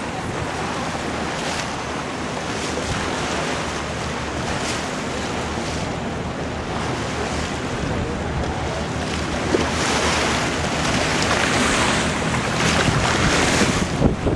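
A moving motorboat: water rushing past the hull and wind buffeting the microphone, with the engine running as a low steady drone underneath. The rushing grows louder about ten seconds in.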